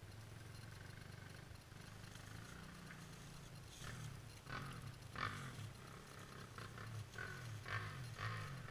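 Quad (ATV) engine idling with a low, steady hum. From about four seconds in, the revs rise and fall unevenly, with brief higher-pitched bursts of engine noise.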